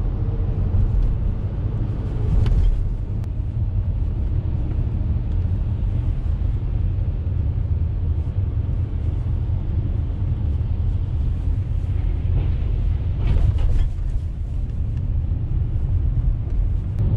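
Steady low rumble of a car's engine and tyres on the road, heard inside the cabin while driving, growing briefly louder twice, near the start and about three-quarters of the way through.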